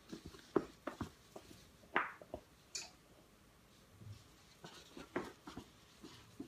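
Soft, scattered pats and scuffs of a baby's hands and knees on a woven rug while crawling.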